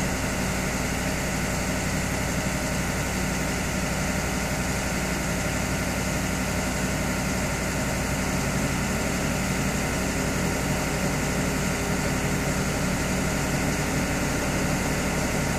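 2012 Ford 6.7-litre Power Stroke V8 turbodiesel running steadily while a scan tool's engine-running self-test holds it at idle. Near the end the sound drops off suddenly as the test finishes.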